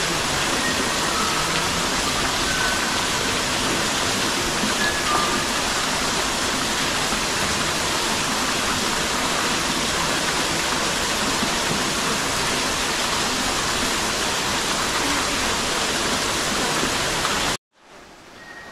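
Steady rush of falling water, loud and unchanging, with a few faint short high chirps in the first few seconds; it cuts off abruptly near the end.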